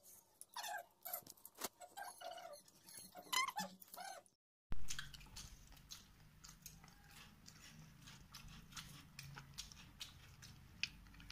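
Eating by hand: small clicks and ticks of fingers working rice on a steel plate, with chewing. In the first few seconds there are a few short high-pitched vocal sounds. After an abrupt cut, a low steady hum sits under the clicks.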